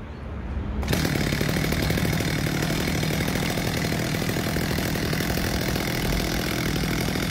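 Two-stroke Stihl chainsaw starting up about a second in, then idling steadily while it lies on the ground.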